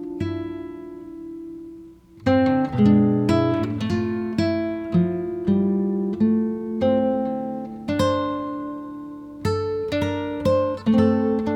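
Background music played on acoustic guitar: plucked notes and chords ringing out one after another, with a short pause about two seconds in.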